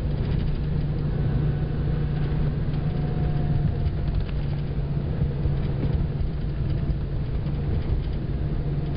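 Steady engine and road rumble heard inside the cabin of a moving vehicle as it drives along.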